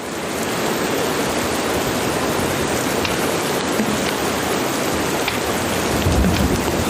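Steady heavy rain ambience played back from a layered sound-effects mix, an even hiss of rain with a few faint drop ticks. A low rumble swells briefly near the end.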